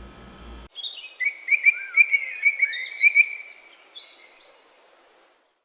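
Bird song: a quick run of bright chirps and short trills, loudest in the first half and fading out. It starts about a second in, as the low room hum cuts out.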